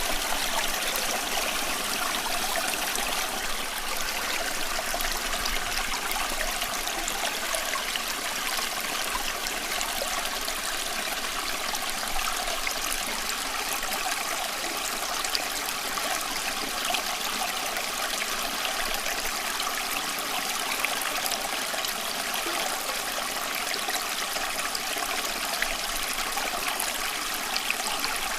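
Running water, a steady flow with a trickling, splashing texture.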